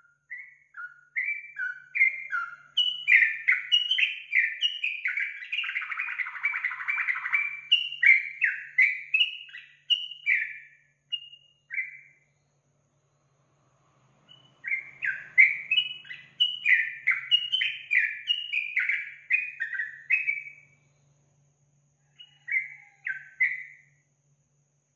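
Trucukan (yellow-vented bulbul) singing: long runs of quick, bubbly, falling notes, breaking off about halfway for a couple of seconds, starting again, and ending with two short notes.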